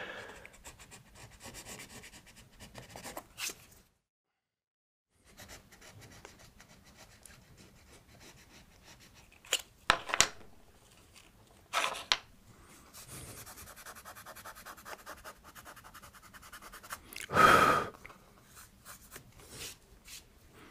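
Hand tools scraping and rubbing on a wooden floor plank: a plastic scraper levelling the raised edges of a scratch, then an abrasive roughening the spot. A few short clicks of tools on the board, and one louder knock near the end.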